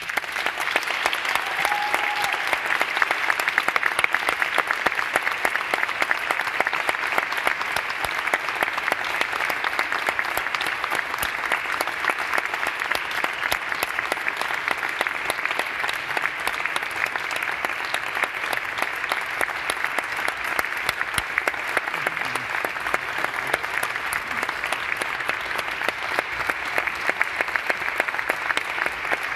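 Audience applauding, many hands clapping in a dense, steady patter that starts suddenly.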